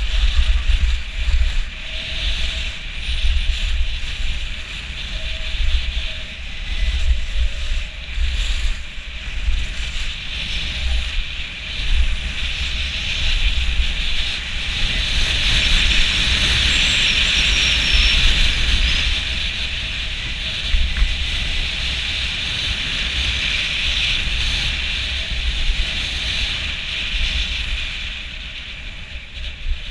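Wind buffeting a helmet-mounted GoPro Hero4 during a fast ski descent, a gusting low rumble under a steady hiss of skis running on the snow. The hiss grows louder and more even for several seconds around the middle, then eases off.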